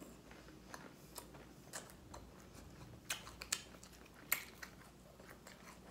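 Someone chewing food: a string of irregular soft mouth clicks and smacks, the sharpest about four seconds in.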